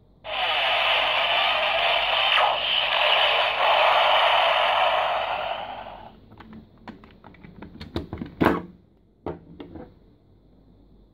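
Tinny electronic sound effect from a Kamen Rider toy's small speaker, lasting about five and a half seconds before it stops. It is followed by a string of plastic clicks and knocks as the toy belt is picked up and handled, the loudest knock near the end.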